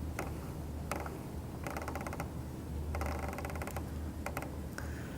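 Faint rapid ticking in two short spells as a fishing rod blank is turned to wind thread onto it in a spiral wrap, over a low steady hum.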